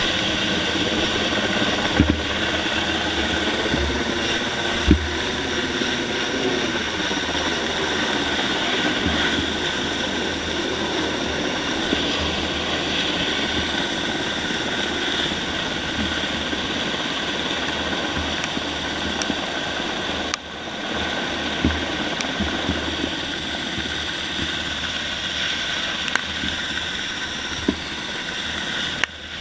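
Helicopter running directly overhead, heard from beneath it on a SPIES extraction rope as the line lifts off and climbs over the trees: a steady rush of rotor and engine noise with a steady whine in it. A few sharp knocks come through, the loudest about two and five seconds in.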